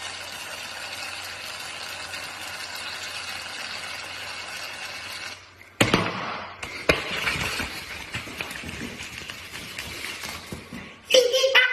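Aerosol can of shaving cream hissing steadily as foam is sprayed into a hand, stopping about five seconds in. After that come irregular crackling and rustling as the mound of foam is handled and pressed.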